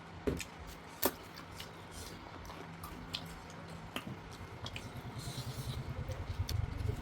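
Close-miked eating sounds: chewing and wet mouth noises with scattered sharp clicks and smacks, two louder clicks near the start. A low rhythmic pulsing, in time with chewing, builds over the last couple of seconds.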